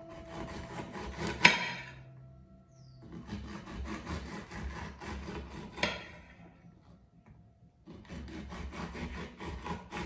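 Serrated knife sawing through red cabbage on a plastic cutting board: three runs of quick rasping strokes with short pauses between. The first two runs end in a sharp knock, the loudest sound.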